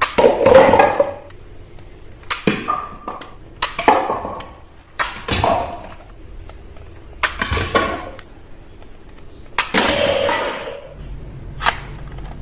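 Toy gun shots: six short noisy bursts, a second or two apart, then a single sharp click near the end.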